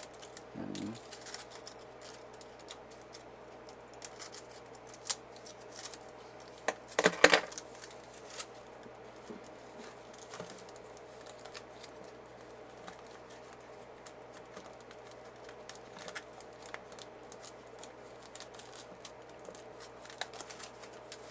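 Aluminium foil crinkling and rustling as hands trim and press it around a model, with small snips of scissors. The clicks and rustles are scattered, with a louder burst of crinkling about seven seconds in.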